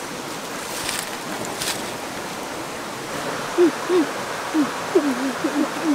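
Short, low hooting calls, repeated several times from about three and a half seconds in, over a steady hiss.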